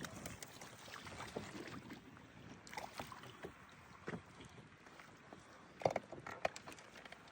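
Small knocks and clicks from handling gear in a fishing boat, over a faint steady hiss of open-air background, with a short cluster of louder knocks about six seconds in.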